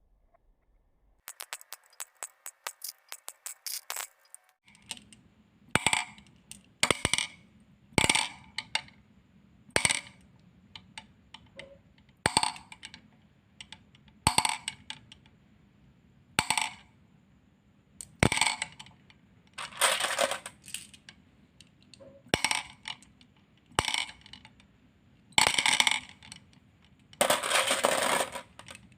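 Marbles clicking and clacking as they run down a marble run: a quick string of small clicks a second or so in, then separate sharp clacks every second or two, and longer bursts of clattering near the end.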